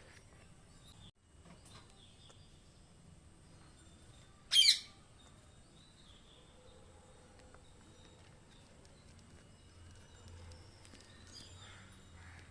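A parrot gives one short, loud call about four and a half seconds in, over faint background noise.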